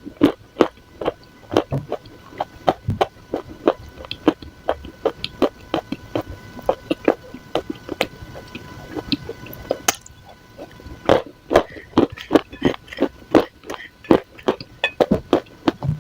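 Dry clay crumbs crunching close to the microphone: a quick run of crisp crunches, several a second, with a short lull about ten seconds in.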